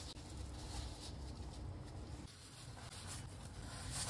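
Faint rustling and scraping of a lavash wrap against a non-stick frying pan as it is laid in and turned.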